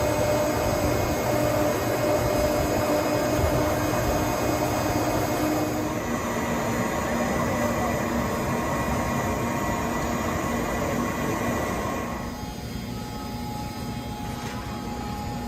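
Steady machine noise, a constant rush with a few steady humming tones; the tones shift abruptly about six and twelve seconds in, and it is a little quieter after the second change.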